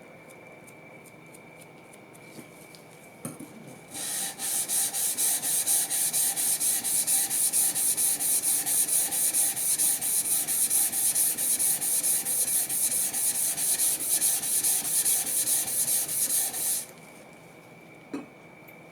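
Plane blade being honed on an abrasive with rapid, even back-and-forth strokes, a rhythmic scraping hiss as the nicked edge is ground sharp. It starts about four seconds in and stops a couple of seconds before the end, with a light knock just before it begins and another after it stops.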